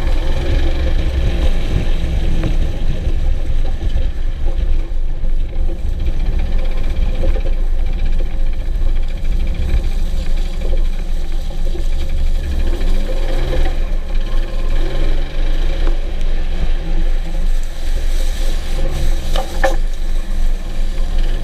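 1997 Jeep Wrangler TJ's 4.0-litre inline-six running steadily, its pitch rising and falling several times about two-thirds of the way through. It has a knock that the owner cannot place as engine or transmission.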